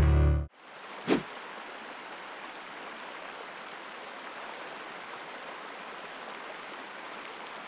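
Steady rushing of a river running over rocks. Just before it, acoustic guitar music cuts off about half a second in, and a short burst of noise comes about a second in.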